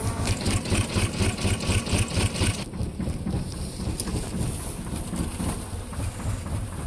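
A vehicle engine idling steadily with an even low chugging.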